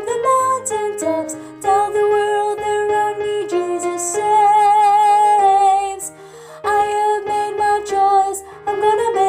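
Music from a choral song arrangement with a woman's singing voice over the accompaniment, holding one long note with vibrato about halfway through.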